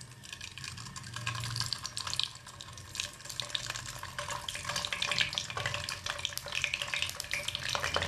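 Hot oil sizzling and crackling in a non-stick kadai as peeled hard-boiled eggs are placed into it to fry, with a steady spatter of small pops.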